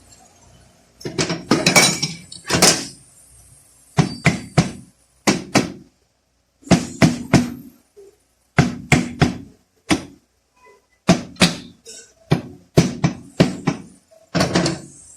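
A run of sharp knocks and clunks in quick groups of two or three, with short gaps between groups, from metal transmission parts being handled and knocked together.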